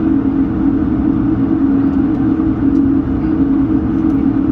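Airbus A220's Pratt & Whitney PW1500G geared turbofan engines running steadily as the airliner taxis, heard as a constant cabin drone with a steady low hum.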